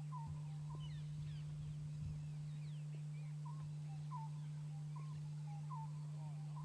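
Birds calling: a series of short, hooked call notes repeated every second or so, with thin higher chirps from other birds over them, against a steady low hum.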